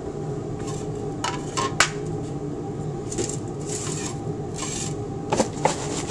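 Handling noise as the soil sample and its dish are set on a triple-beam balance pan: scattered clicks and clinks with a few short scraping rustles, the sharpest about two seconds in and again near the end, over a steady low hum.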